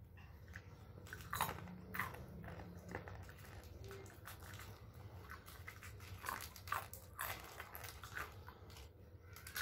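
Close-up biting and chewing of a crunchy snack: an irregular run of short crunches.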